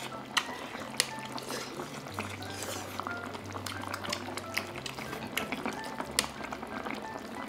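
Braised beef short ribs (galbi-jjim) with glass noodles simmering in an electric multi-grill pot, a steady bubbling hiss, with a few sharp clicks of chopsticks against the pot and dishes. Soft background music plays underneath.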